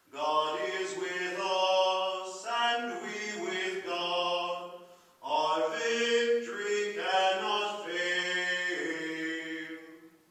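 A man singing a hymn unaccompanied, in phrases of held notes, with a short pause for breath about five seconds in; the last note fades out near the end.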